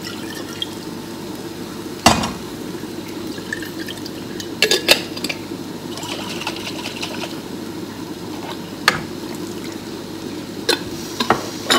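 Water poured into a near-empty glass sauce jar and swirled to rinse it, with several sharp clinks of the jar and a metal spoon against the metal pan. Under it runs the steady bubbling of noodles boiling in a lidded pot on the gas stove.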